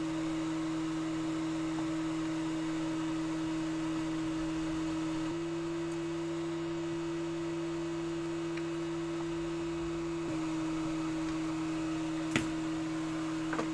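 Steady low electrical hum made of two held tones from bench equipment. The upper tone shifts slightly higher about five seconds in and drops back about ten seconds in. There is one sharp click near the end.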